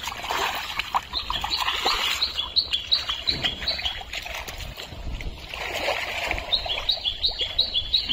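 A songbird giving quick runs of high two-note chirps, repeated several times, over wet splashing and squelching as hands dig through thick pond mud.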